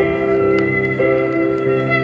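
Street cellist bowing slow, sustained notes on an amplified cello, moving to a new note about every half second.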